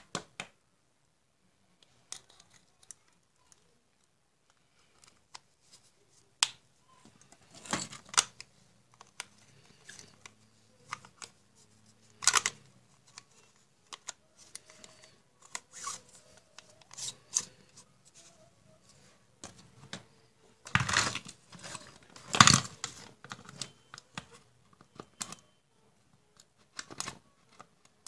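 Scattered clicks, taps and scrapes of hard plastic being handled, as a compact fluorescent bulb's casing and a lamp socket are fitted together. The loudest scraping comes in a short cluster about three quarters of the way through.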